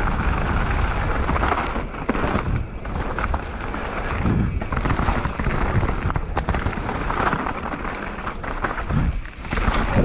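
Wind buffeting an action camera's microphone over the rumble of a mountain bike's tyres on dirt and rock at speed, with frequent clicks and rattles from the bike as it goes over bumps.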